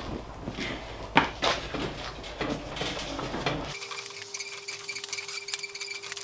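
Light knocks, clinks and rustling of a road bike being handled and wiped down with a cloth. About two-thirds of the way through the background drops away abruptly, leaving quieter ticks over a faint steady hum.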